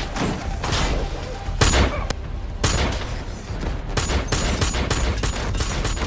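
Film gunfight: a dozen or so gunshots over a few seconds, some single and some in quick clusters, with reverberation filling the gaps.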